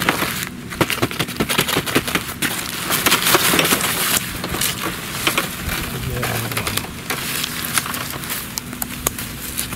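A woven plastic sack and a wire-mesh trap being handled, giving dense crinkling and rustling with many sharp crackles and clicks.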